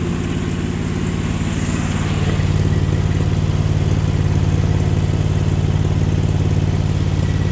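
The 20 hp Briggs & Stratton V-twin engine of a Sears Suburban garden-tractor loader, running steadily under load as the machine pushes through snow. It grows louder about two seconds in and holds there.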